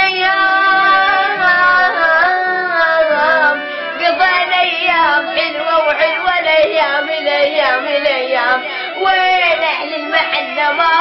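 A boy singing a mournful Iraqi Arabic song solo, in long wavering, ornamented melodic lines.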